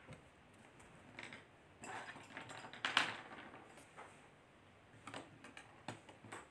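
Boiled, peeled potatoes being set into a glass bowl: irregular soft knocks and taps against the glass, busiest and loudest about three seconds in, with a few more taps near the end.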